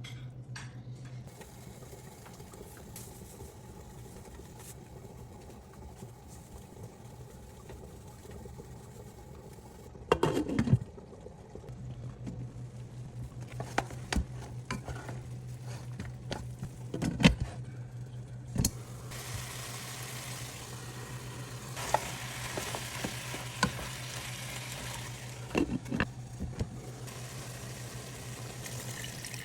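Cooking in a pan: a utensil knocking and scraping against the pan several times, with food sizzling for several seconds in the second half, over a steady low hum.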